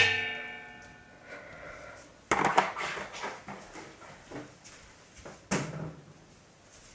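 A container of water is set down with a sharp clang that rings and fades over about a second. Then come a cluster of knocks and clunks about two and a half seconds in and another knock about five and a half seconds in, the handling of containers while the water is weighed on a kitchen scale.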